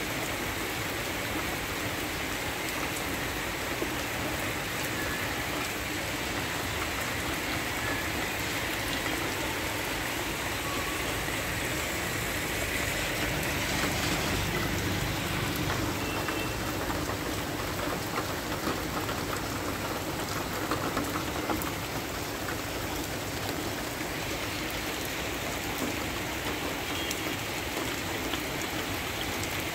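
Heavy rain falling steadily on wet grass and puddled ground, growing a little louder about halfway through.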